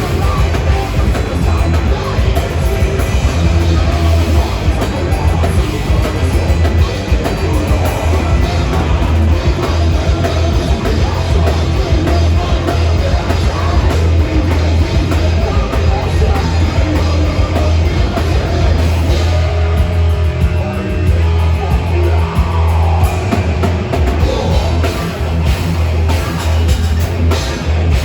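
Live heavy metal band playing loud, with a drum kit, guitars and singing over a heavy low end.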